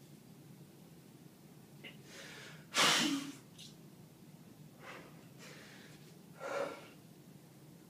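A man breathing hard while holding bodybuilding poses: four forceful huffs of breath, the loudest about three seconds in.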